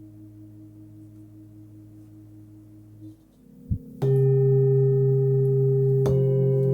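A 26 cm Nepalese singing bowl with its deep note at about 107 Hz. A faint ring fades out and stops about three seconds in. After a short low thump, the bowl is struck and rings out loudly with many overtones about four seconds in, and it is struck again about two seconds later.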